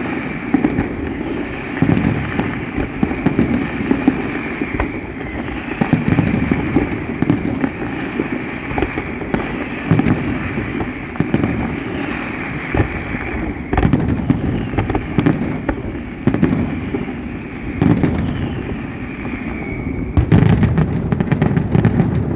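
Fireworks display: heavy booms of bursting shells every few seconds over a constant crackle, with a high whistle that falls in pitch just before a dense, rapid barrage of sharp bangs and crackles near the end.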